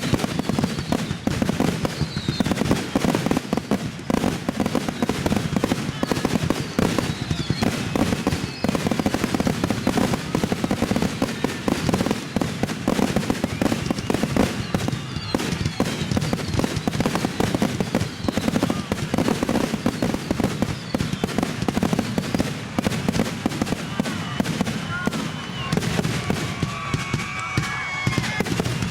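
Fireworks finale: a continuous, rapid barrage of shell bursts and crackling with no pauses, broken now and then by thin whistling glides. Voices rise over the bangs near the end.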